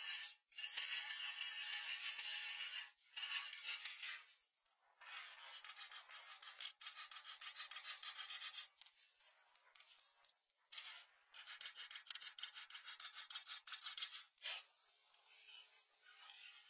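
Rapid rasping, scraping strokes in several bursts of one to three seconds, with short quiet gaps between them.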